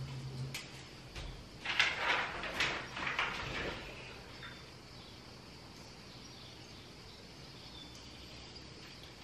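Rustling and scraping of paper and bedclothes as someone climbs onto a bed and handles sheets of paper on the wall. The handling noises come in a cluster lasting about two seconds, starting about two seconds in, over a faint steady high hiss.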